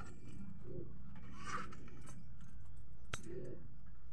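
Haircutting scissors snipping hair, with one sharp snip about three seconds in.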